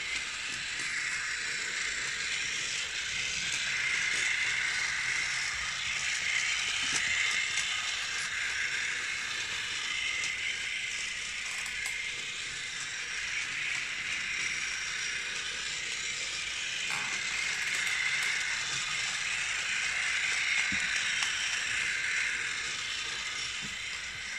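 Battery-powered Takara Tomy Plarail toy locomotive running on plastic track: its small geared motor gives a steady high whirring rattle, with a few clicks from the wheels on the rails. The sound grows louder and softer in slow waves.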